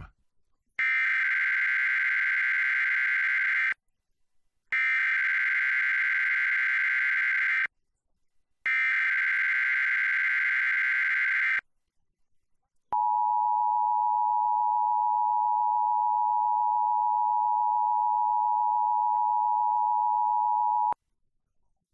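Emergency Alert System activation for a test tornado warning. Three buzzy, warbling bursts of SAME digital header data last about three seconds each, with a second of silence between them. Then the steady two-tone EAS attention signal sounds for about eight seconds and cuts off.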